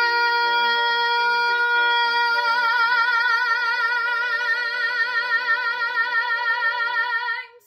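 A woman singing the song's final long, held high note over piano accompaniment. The note is steady at first, then takes on a widening vibrato from about two seconds in, and cuts off cleanly shortly before the end.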